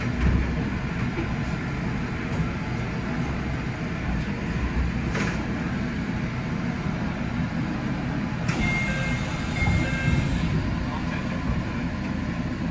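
Steady low rumble of a passenger train standing at a station platform. About eight seconds in, a hiss rises with a few short high electronic beeps, then fades after about two seconds.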